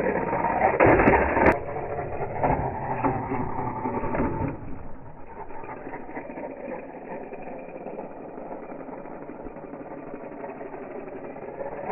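Electric 1/8-scale RC trike (XRider Flamingo) running fast, its motor whining and its tyres rolling on concrete, with several sharp knocks in the first few seconds as it jumps and lands in the bowl. After about five seconds it goes fainter and steadier.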